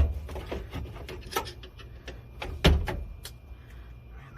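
Scattered clicks and knocks of hand tools prying and working a stuck ignition switch loose from a truck's dashboard, with two heavier thumps, one at the start and another a little under three seconds in.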